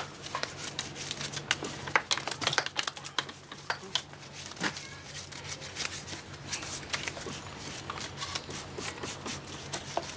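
Hand brush scrubbing the bare, grimy powerhead of a small outboard motor: an irregular run of short scratchy strokes.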